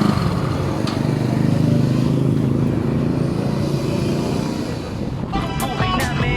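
Yamaha Mio Soul scooter's single-cylinder four-stroke engine idling steadily, running on jumpered ignition and starter wires. Background music comes in near the end.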